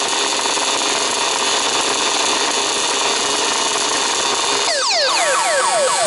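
Several 1/5-scale two-stroke petrol RC buggy engines buzzing at high revs. Close to five seconds in, a nearby engine's pitch falls sharply several times in quick succession.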